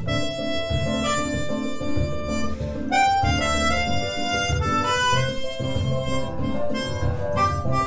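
Yamaha 37P melodica playing a samba melody, one held reedy note after another, over a low rhythmic backing accompaniment.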